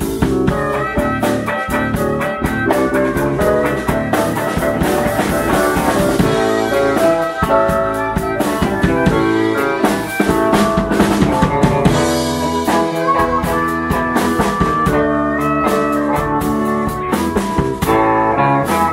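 Live blues band playing, with a blues harmonica wailing over drums, bass and keyboards.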